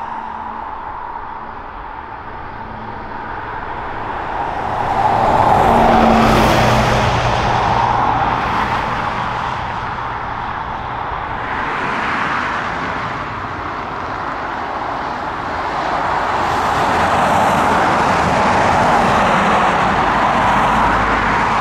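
Jet engine noise from an Icelandair Boeing 757 taxiing: a continuous rushing sound that swells about five seconds in and again for the last few seconds.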